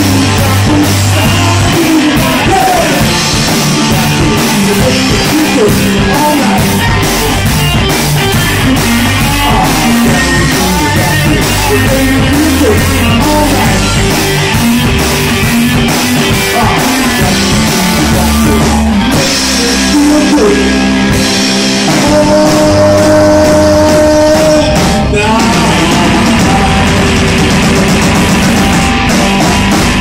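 Live rock band playing loud, amplified electric guitars over a drum kit.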